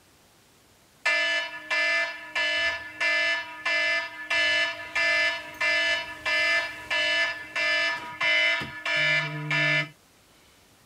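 Electronic alarm beeping in an even, repeating pattern, about fourteen beeps at roughly one and a half a second, starting about a second in and cutting off suddenly near the end; a lower tone joins the last beep.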